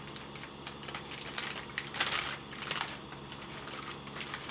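Paper takeout bag rustling and crinkling as it is opened and a hand reaches inside, in irregular crackles with the loudest about two seconds in.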